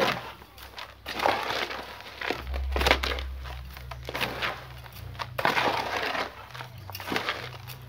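Gritty bonsai potting medium crunching and scraping in irregular bursts as the soil in the pot is worked loose around the roots, ahead of pulling the plant out for repotting.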